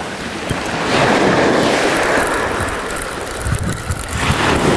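Sea waves breaking on the beach, the surf swelling about a second in and again near the end, with wind buffeting the microphone.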